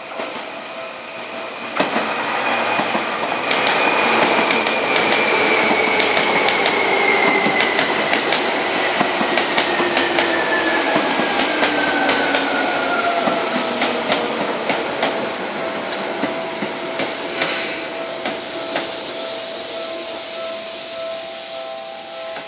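Seibu 20000-series electric train pulling in and passing close by. Its inverter motor whine falls steadily in pitch as it slows, and its wheels click over the rail joints.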